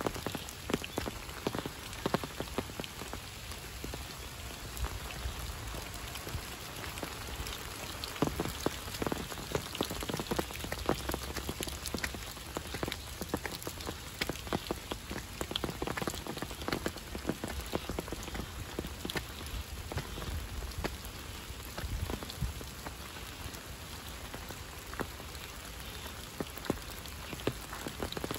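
Steady rain falling on wet paths, stone steps and leaf-covered ground, with many sharp, close drop hits standing out over an even patter.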